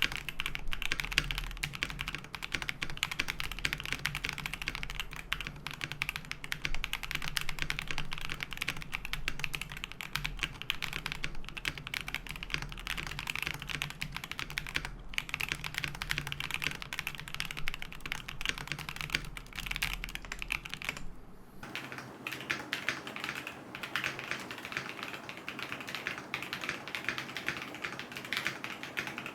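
Fast, continuous typing on a mechanical keyboard with linear switches, KTT Hyacinths in a KBD67 Lite, over a steady low electrical hum. About three quarters of the way through there is a cut: the hum stops and the keystrokes sound fuller and lower.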